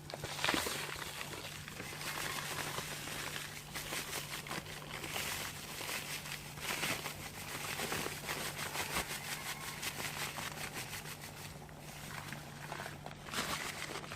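Pot of tteokbokki broth bubbling and crackling as it comes to the boil, a dense stream of small pops over a steady low hum.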